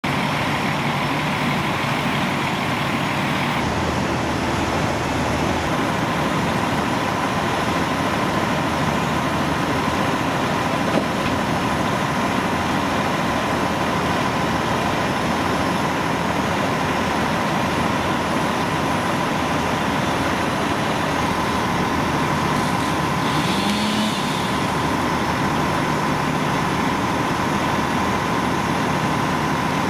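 Fire engines' diesel engines running steadily with their pumps engaged, feeding the charged hose lines, with a steady whine over the engine noise.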